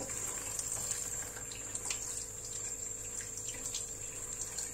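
Water running steadily from a tap, with a few faint small clicks.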